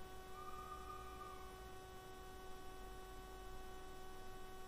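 Faint, steady electrical hum made of several fixed tones layered over low background hiss.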